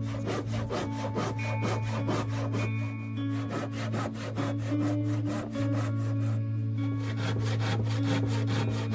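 Hand saw cutting through solid wood, sawing a protruding round wooden peg off flush with the side of a locker in rapid back-and-forth strokes, several a second. Background music with a steady low drone plays underneath.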